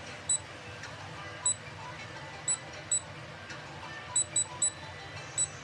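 Digital air fryer's touch control panel beeping with each button press as the cooking temperature and timer are set: about eight short high beeps at uneven spacing, three in quick succession about four seconds in.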